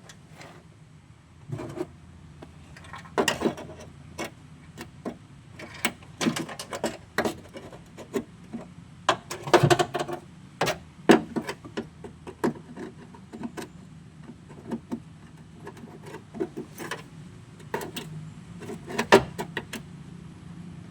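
Irregular metallic knocks, clicks and scrapes as a piece of rusty car body panel, cut around with a grinder, is worked loose and pulled free; no grinder running.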